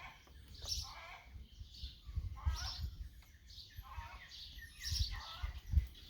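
Small birds chirping in short bursts about once a second, over low rumbling bumps.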